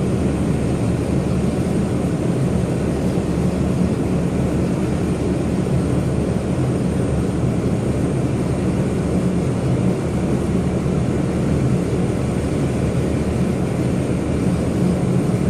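Airliner jet engines running steadily, a constant low hum and rumble that does not rise or fall.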